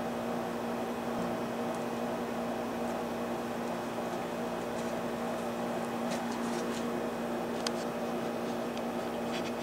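A steady hum of an unseen machine with a constant low drone, with a few faint light clicks in the second half.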